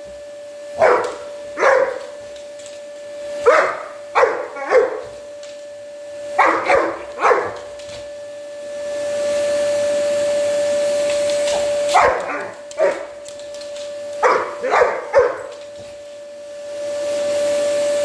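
Large black Labrador retriever barking at a running vacuum cleaner, in quick groups of two or three barks. Under the barks the vacuum motor whines on one steady tone. Its rushing noise swells louder during a pause about halfway through and again near the end.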